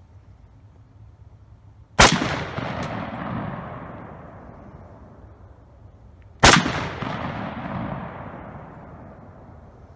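M1 Garand rifle firing .30-06 rounds: two shots about four and a half seconds apart, each sharp crack followed by a long echo dying away over two to three seconds.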